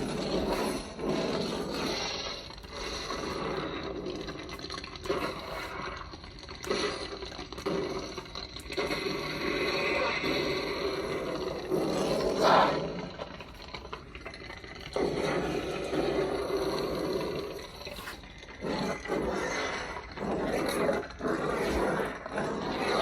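Lightsaber sound font playing from a Proffieboard core through its 28 mm speaker, in a rhodium sleeve: the blade hum with swelling swing sounds that rise and fall every second or two, and one sharper, louder burst about twelve seconds in. The rhodium sleeve has no rear vent holes, so the sound comes through a little subdued.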